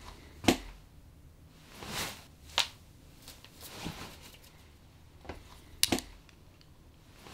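A few sharp clicks: one about half a second in, one at about two and a half seconds, and a quick double click near six seconds. Soft swishing sounds rise and fade between them.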